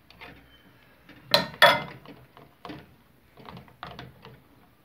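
Wire whisk clinking and scraping against a stainless steel pot while stirring thick chocolate sauce: two louder clanks about a second and a half in, then a few lighter taps.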